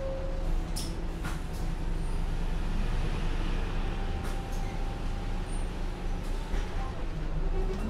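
Engine of a Heuliez GX 317 natural-gas (GNV) city bus running steadily at low speed, with a few sharp clicks. Just before the end its pitch starts to rise as the bus accelerates.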